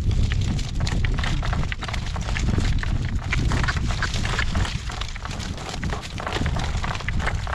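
Strong wind buffeting the microphone with a heavy rumble, over the quick, irregular clatter of a driving horse's hooves.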